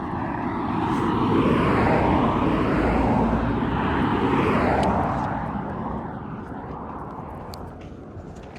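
A vehicle passing by on the road: its noise swells over the first couple of seconds and fades away from about five seconds in.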